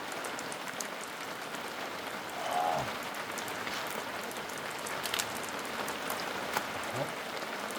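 Heavy rain falling steadily, with scattered sharp taps of drops. A brief voice-like call sounds about two and a half seconds in.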